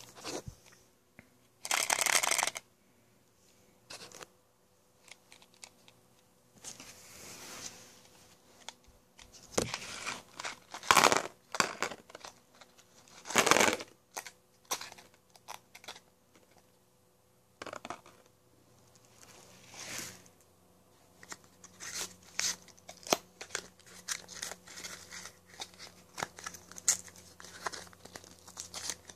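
Plastic or paper packaging being handled, crinkled and torn open. It comes in irregular rustling bursts, a few louder ones in the first half, then many small crackles toward the end.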